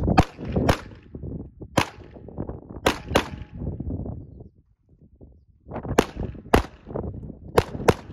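Handgun shots fired in quick pairs and singles, about nine in all, with a pause of about two and a half seconds in the middle.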